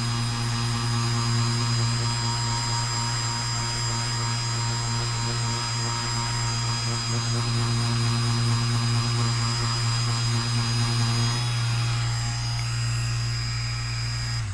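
A machine running steadily, a strong low hum with a high whine over it. Part of the whine stops about eleven and a half seconds in, and the whole sound cuts off suddenly at the end.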